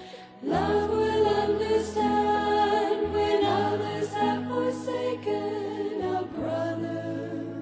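Background music: a slow song with voices singing over held notes and a steady bass line, with new phrases coming in about half a second in and again after about three seconds.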